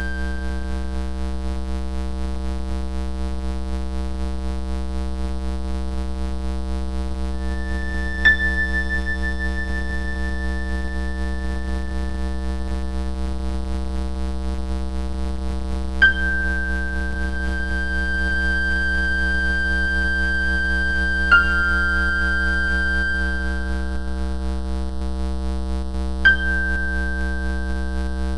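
Steady electronic drone of layered sustained sine-like tones, low and high together. Four times, about five to eight seconds apart, a short click marks a high tone starting or stepping to a new pitch.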